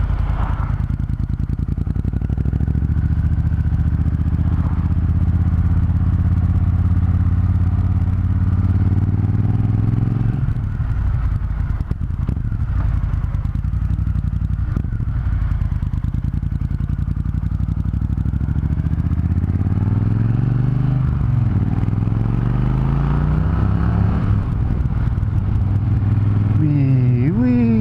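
Triumph Thunderbird Storm's 1700 cc parallel-twin engine running under way, picked up by a helmet microphone. Its pitch shifts about ten seconds in and climbs again between about twenty and twenty-four seconds as the bike accelerates.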